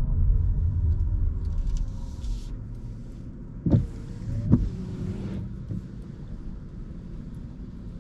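Car cabin road and drivetrain noise, loud at first and dying down with a faint whine falling in pitch as the car slows. About halfway through come two sharp clicks, under a second apart, with a hiss between them.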